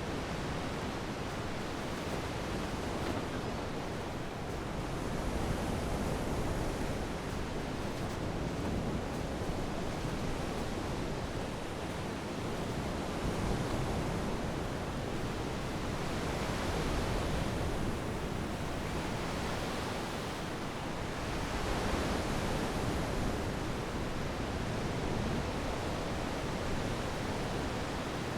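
Steady rush of wind and water around a yacht under sail, swelling and easing every few seconds.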